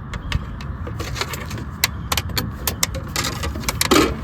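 Clicks and light metallic rattles of a CB antenna and its small parts being handled, with a denser scraping rustle about three seconds in, over a steady low rumble.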